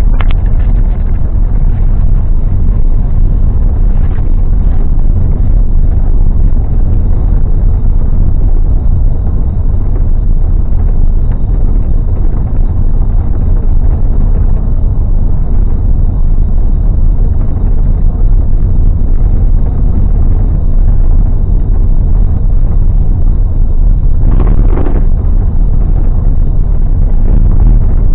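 A bus driving along the road: a loud, steady low rumble of engine and road noise, with a brief burst of louder noise about 24 seconds in.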